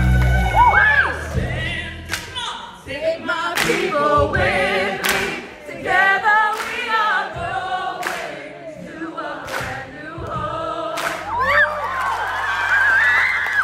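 A woman singing solo into a microphone, her voice bending and sliding through runs and held notes. Through the middle come sharp single hits about every second and a half.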